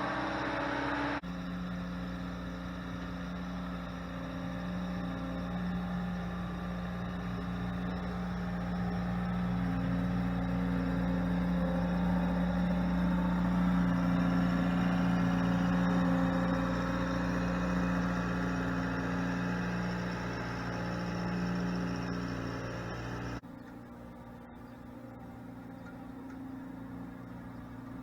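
Bobcat T66 compact track loader's diesel engine running steadily. The sound changes abruptly about a second in, and near the end it suddenly drops quieter.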